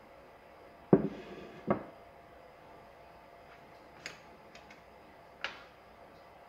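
Two loud knocks about a second in, less than a second apart, with a short rattle, as the stone resin cowl is set down. Later come a few light clicks and taps as a pencil and a small wooden block are put down on a wooden worktop.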